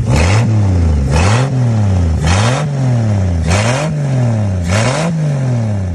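1962 Plymouth Valiant's slant-six engine running and being revved in repeated blips, about one a second, five times over: the pitch climbs with a loud burst of engine noise, then falls back toward idle each time. The engine, long unwilling to crank, is now running.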